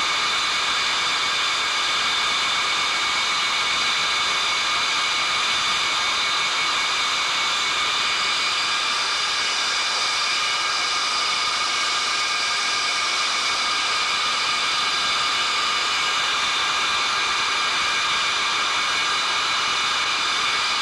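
Boeing KC-135A's Pratt & Whitney J57 turbojet engines running steadily during a ground maintenance engine run: an even, loud rush of noise with several steady high-pitched whining tones.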